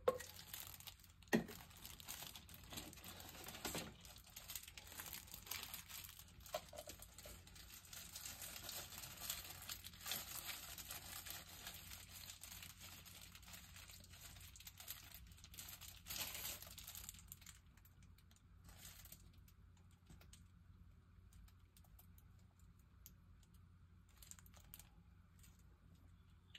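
Packaging crinkling and rustling as it is handled, with small clicks throughout; it dies down about two-thirds of the way through.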